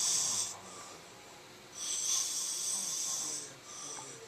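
A man snoring: one hissy snore breath fades out about half a second in, and another runs from about two seconds in to three and a half seconds, in a slow breathing rhythm.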